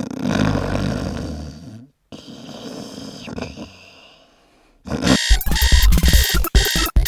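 A sleeper snoring twice in long, noisy breaths. Then, from about five seconds in, a digital alarm clock goes off with loud, rapid beeping as it reaches the alarm time.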